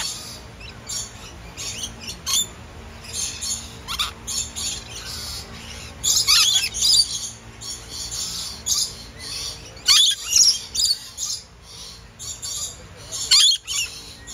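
Lorikeets screeching: shrill, high-pitched calls in repeated short bursts, the loudest about six, ten and thirteen seconds in.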